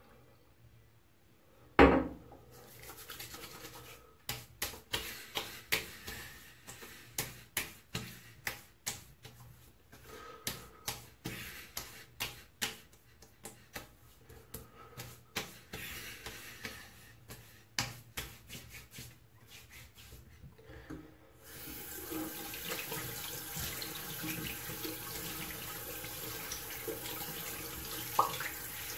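A single knock about two seconds in, then a long run of sharp hand slaps on skin, a few a second, as aftershave is patted onto the face and neck. Near the end a bathroom tap starts running steadily into the sink.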